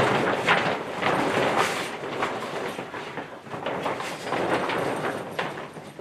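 Mylar-lined grow tent fabric rustling and scraping in irregular surges as it is dragged and pulled over the tent's frame.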